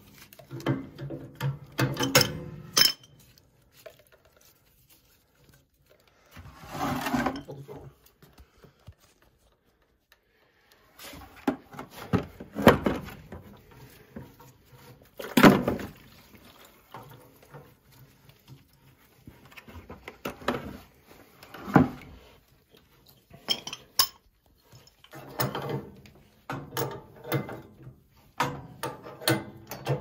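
Wrench and metal fittings clinking and knocking in scattered sharp strikes as a 3/4-inch boiler drain valve is worked off and onto a steam boiler's drain pipe. A brief rushing noise about seven seconds in.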